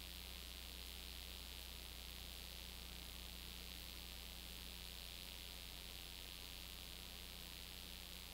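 Steady low electrical hum with constant hiss and no other sound: the noise floor of a silent 8mm home-movie transfer.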